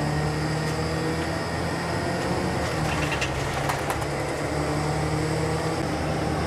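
Bus engine running steadily with road noise, heard from inside the cabin while under way. A few light clicks or rattles come about three to four seconds in.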